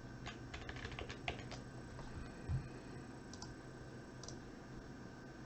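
Computer keyboard typing: a quick run of keystrokes in the first second and a half, then a couple of single clicks. A low thump about two and a half seconds in, over a steady faint hum.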